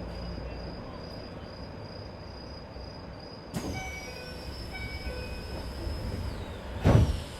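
Inside a Keisei 3050-series commuter car standing at a station: a repeated on-off chime sounds twice about halfway through, then a single loud thump near the end, typical of the doors closing before departure.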